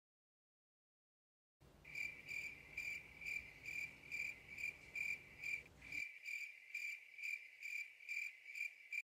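Crickets chirping in a steady run of about three chirps a second, starting out of dead silence about a second and a half in and cutting off abruptly near the end: an edited-in 'crickets' sound effect.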